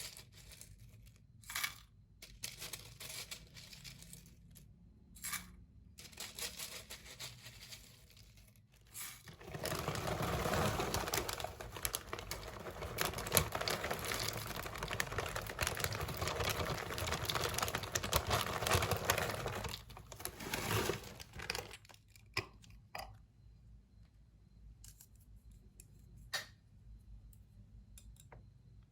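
Plastic packaging being handled: crinkling, rustling and tearing, with scattered clicks. The sound thickens into a steady stretch of rustling in the middle.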